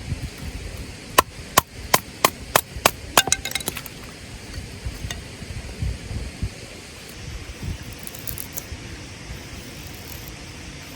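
Wood being struck hard: a run of about seven sharp knocks, roughly three a second, ending in a quick flurry of lighter clicks, over a low outdoor rumble.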